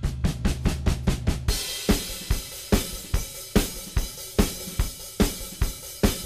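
Background music: a drum-kit beat with kick, snare and cymbals, quick hits at first, then settling into a steady rhythm.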